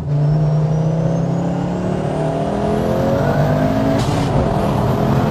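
Turbocharged Audi S2 five-cylinder 20-valve engine under full-throttle acceleration, rising steadily in pitch. About four seconds in there is an upshift, and the pitch drops and starts climbing again. A faint high whine rises with the engine early on.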